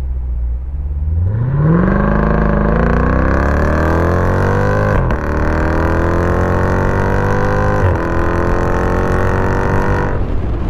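Jeep Grand Cherokee SRT's 6.4-litre HEMI V8 accelerating hard, its note climbing steadily. The pitch drops sharply at two upshifts, about five and eight seconds in, and climbs again after each. Near the end the engine note falls away, leaving road noise.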